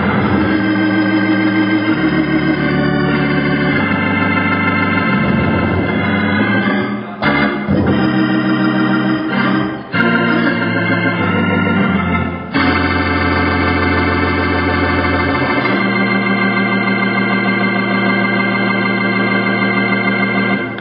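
Hammond C3 tonewheel organ played solo: full sustained chords over low bass notes, changing every couple of seconds, with a few short breaks between phrases in the middle.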